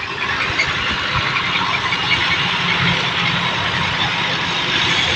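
Massey Ferguson 240 tractor's diesel engine running as the tractor moves along the road. A steady rushing noise sits over the engine's low rumble.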